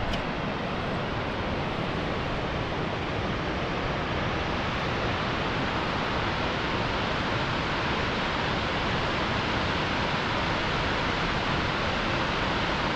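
Waterfall rushing, a steady roar of falling water.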